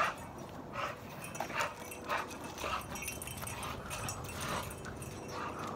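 A large bully-type dog whimpering in short bursts, repeated every half second to a second.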